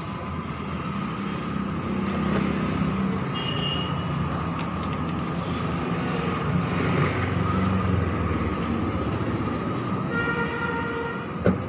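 Steady street traffic noise with a low rumble, and a vehicle horn sounding about ten seconds in. A single sharp click comes just before the end.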